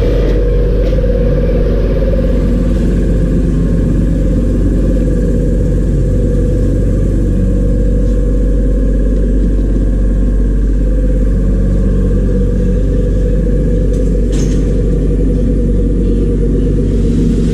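Steady, loud low rumble, unchanging throughout.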